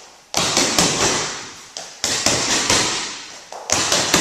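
Punches landing on a striking bag or pad in quick groups of about three hits: jab, cross and shovel hook. Each sharp smack is followed by a long echoing decay.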